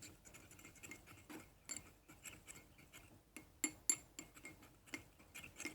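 Metal teaspoon stirring liquid soap and salt in a small dish, with irregular light clicks and taps against the dish and a couple of sharper ones a little past the middle.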